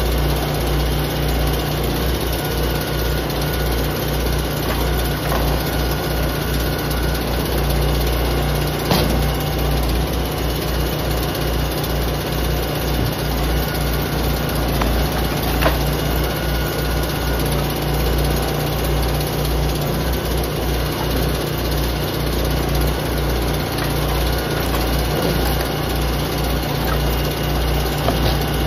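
Engine of a hydraulic log splitter running steadily while firewood rounds are pushed through a multi-way splitting wedge, with a couple of sharp cracks as the wood splits.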